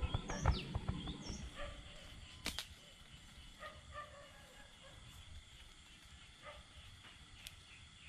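Night insects chirring steadily and high-pitched, with a few knocks and short chirping calls in the first second or so and one sharp snap about two and a half seconds in. After that, faint short calls repeat at intervals.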